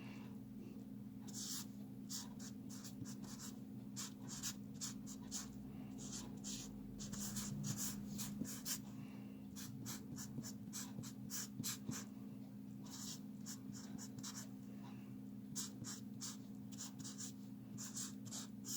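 Short, irregular scratching strokes, like a pen or pencil writing on paper, over a steady low hum.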